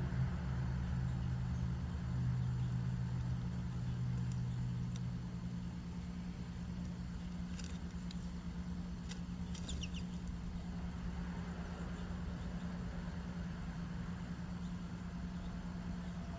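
Steady low rumble and hum, like distant traffic, with a small bird chirping briefly twice near the middle.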